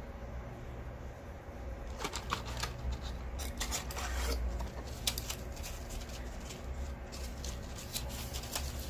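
Rustling and clicking of a cardboard supplement box and plastic blister packs of capsules being handled, starting about two seconds in.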